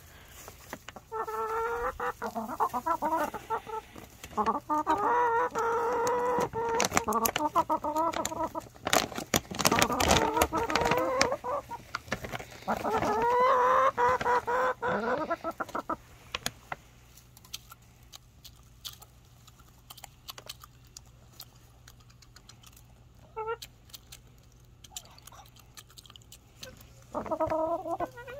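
Backyard hens clucking and calling, excited over a treat of dried mealworms: a busy run of overlapping calls for the first half, then quieter with scattered clicks, and more clucking near the end.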